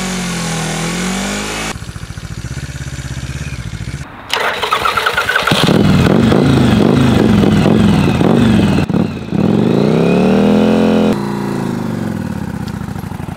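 Motorcycle engines revved hard for burnouts: first an engine held at high revs that sags, then a 1987 Yamaha Virago 750's V-twin running at low revs before being revved hard from about four seconds in, the revs swinging up and down repeatedly before dropping back near the end. The rider is trying to hold the Virago on its front brake for the burnout, and finds it lacks the front brake power to do it.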